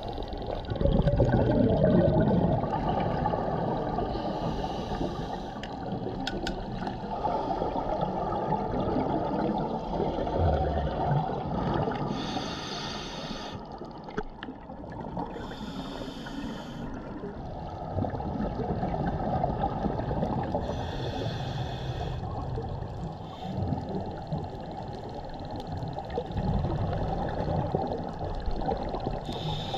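Scuba diver's exhaled bubbles gurgling and rumbling, heard underwater, with brighter breath surges every few seconds.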